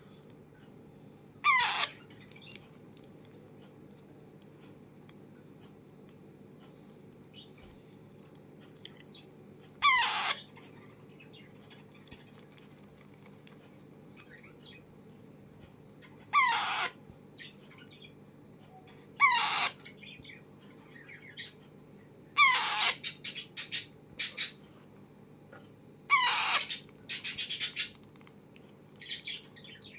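Alexandrine parakeet giving loud, harsh squawks, each sweeping steeply down in pitch. At first they come singly, several seconds apart; then, from about two-thirds of the way in, they come in quick runs of repeated calls.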